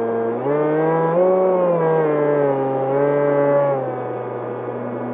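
E-flite Opterra's electric motor and propeller running with a steady whine. It is throttled up about half a second in, rising in pitch and getting louder, and throttled back down to its earlier pitch near the end.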